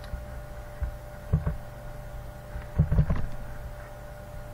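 Computer mouse clicking: a quick pair of clicks about a second and a half in and a quick cluster of clicks around three seconds in, over a steady low electrical hum.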